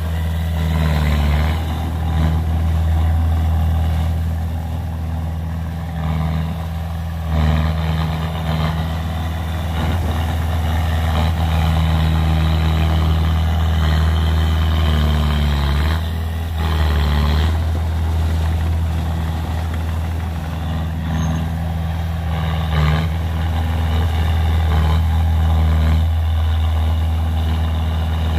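Small crawler bulldozer's diesel engine running steadily under load as the blade pushes soil, with a few short louder surges.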